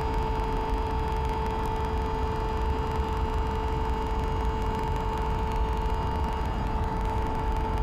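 A steady held tone on the note A, with its octave above, from devices tuned to A. It holds pitch and level without a break, over a low street-traffic rumble.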